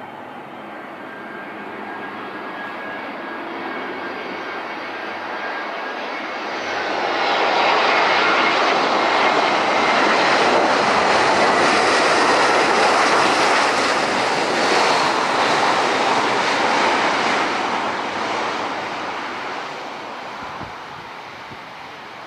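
Jet engines of a Batik Air Airbus A320 on landing. A high engine whine on approach gives way to a loud rushing jet noise that swells from about seven seconds in as the airliner rolls past on the runway, then fades as it moves away.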